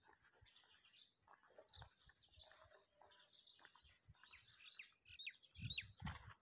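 Faint bird chirps over near silence, with a few short falling chirps bunched about four to five seconds in. A few soft low thumps near the end.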